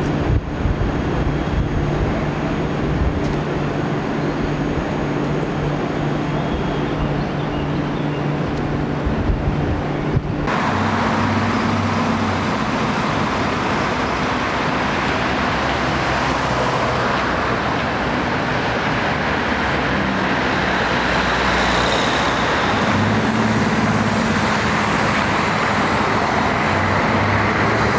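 A stationary passenger train giving a steady hum. About ten seconds in, it cuts abruptly to road traffic, with city buses running and driving past.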